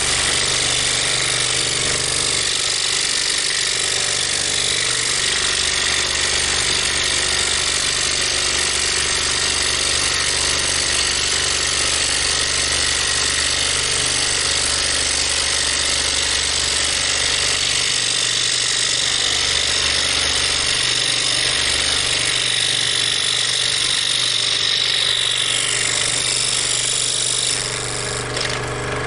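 Craftsman scroll saw running steadily with a fine number 2 spiral blade reciprocating through wood, making a pilot internal cut. The saw shuts off near the end.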